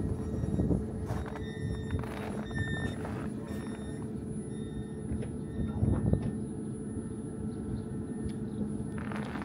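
Steady low rumble and hum from a tram standing at the platform, with a few crunching footsteps on packed snow now and then.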